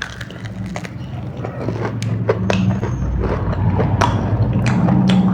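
Close-miked eating sounds: wet chewing with many sharp crackly clicks over a low rumble, growing louder over the second half.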